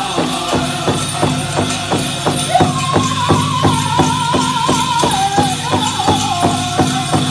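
Powwow drum group playing a chicken dance song: a big drum struck in a fast, even beat of about four strikes a second, with a high, wavering voice coming in about two and a half seconds in and stepping down in pitch.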